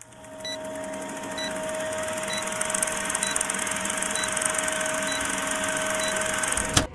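Vintage film countdown leader sound effect: a film projector running with a steady hum and crackling hiss, fading in, with a short tick about once a second as the numbers count down. It ends in a sharp pop.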